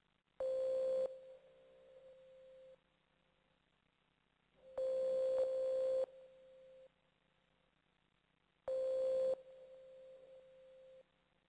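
An electronic tone sounds three times, about four seconds apart. Each is held for about a second, then trails off in fainter echoes.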